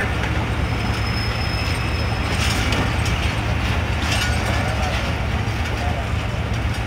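Passenger train coaches rolling slowly out along the platform: a steady low rumble and hum. A thin high whine comes in for a second or two near the start, and a few light knocks follow.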